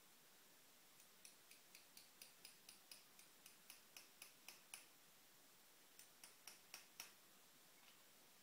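Hammer tapping lightly on a CNC router spindle bearing during a bearing change: quick, ringing metallic taps at about four a second, a run of about sixteen that grows louder, a short pause, then five more.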